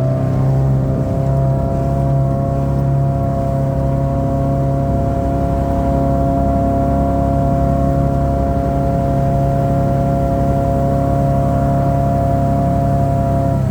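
1991 Sea Ray's four-cylinder sterndrive engine running at a steady high speed under way, after just revving up; its pitch drops as the throttle is eased near the end.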